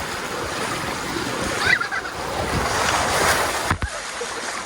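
Steady rush of splashing water, broken by a sudden cut near the end.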